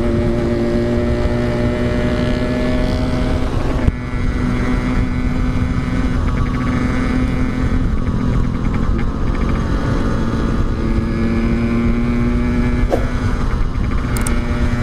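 Yamaha RX-King two-stroke motorcycle engine running steadily, with other motorcycle engines running alongside. There is a sharp knock about four seconds in.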